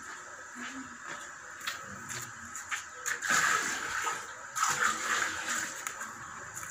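Water poured from a scoop into a metal cooking pot in two splashing pours, about three seconds and about four and a half seconds in, over the light crackle of a wood fire.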